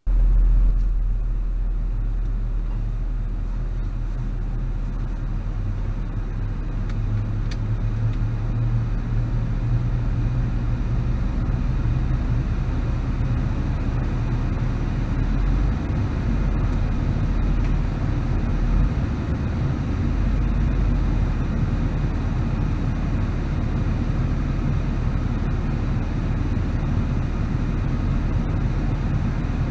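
A car's engine and tyres, a steady low rumble heard from inside the cabin through a windscreen-mounted dash cam as the car moves slowly.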